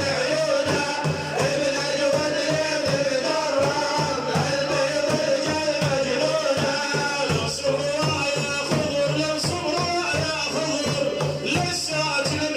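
Devotional Arabic praise chanting, a held, wavering vocal line over a steady, dense hand-drum rhythm.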